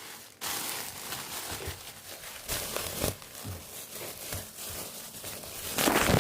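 Irregular crinkling, rustling noise with small crackles, loudest near the end.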